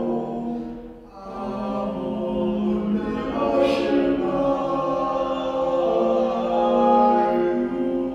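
Men's chamber choir singing in slow, sustained chords. The sound dips briefly about a second in, and a short hiss rises near the middle.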